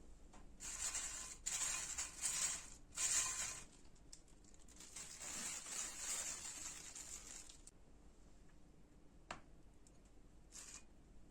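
Several bursts of rustling, crinkling noise, loudest in the first few seconds, then a longer, softer stretch and a couple of sharp clicks near the end.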